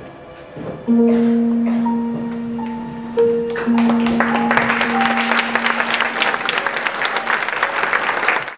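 Music with long held low notes starts about a second in. Audience applause joins about four seconds in and runs over the music until the recording cuts off.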